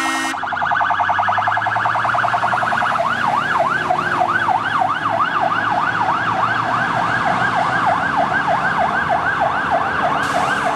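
Fire truck's electronic siren on a fast warble, switching about three seconds in to a yelp that sweeps up and down about three times a second. A horn blast cuts off just at the start.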